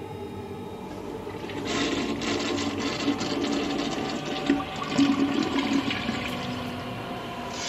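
A toilet flushing. The rush of water starts suddenly about a second and a half in and runs on with uneven gurgling.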